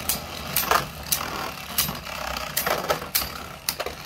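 Two Hasbro Quad Drive Beyblade spinning tops whirring in a stadium, with repeated sharp clacks at irregular intervals as they knock together.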